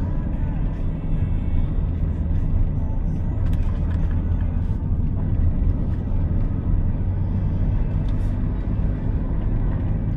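Inside-cabin drone of a 2022 Daihatsu Rocky 1.2 manual's three-cylinder engine running steadily at about 35 km/h, mixed with tyre and road rumble.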